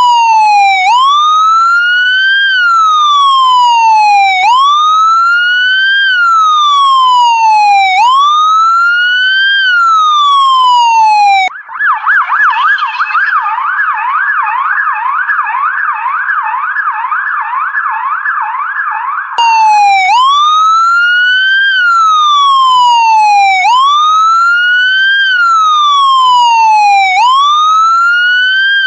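Electronic police siren. A slow wail rises and falls about every three and a half seconds. About eleven seconds in it switches to a quicker, somewhat quieter yelp of about four sweeps a second, then goes back to the wail some eight seconds later.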